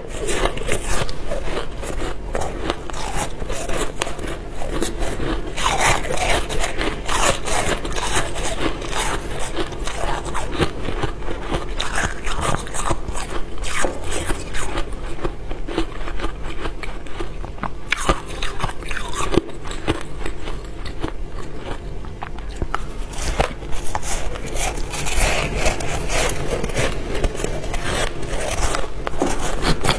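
Close-miked crunching of soft white freezer frost ice being bitten and chewed, a dense run of crisp crackling crunches.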